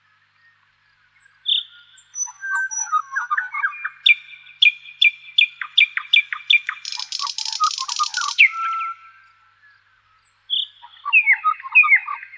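Songbirds singing in separate phrases: quick runs of sharp chirps, a dry buzzy trill in the middle, and short whistled notes. The song starts about a second and a half in and pauses briefly before resuming near the end.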